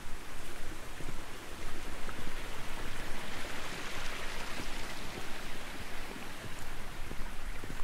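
Single-wheel hiking cart rolling over a rough dirt trail, heard from a camera mounted on the cart: a steady rumble with many small knocks and rattles from the wheel and frame, and a hiss that swells in the middle.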